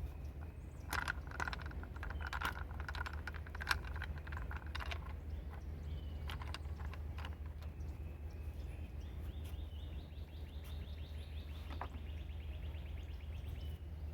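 Hand ratchet and socket clicking and clinking while small 10 mm nuts are taken off an engine cover, ending in a fast, even run of fine ratchet ticks over the last few seconds. A steady low hum runs underneath.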